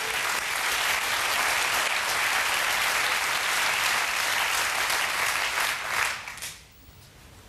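Studio audience applauding, dying away about six seconds in.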